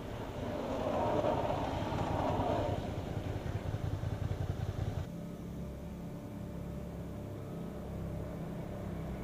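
Sport motorcycle riding through on wet pavement: engine running under a loud hiss of tyre spray, then a rough low rumble as it goes by. About five seconds in, the sound changes abruptly to a steadier low engine drone.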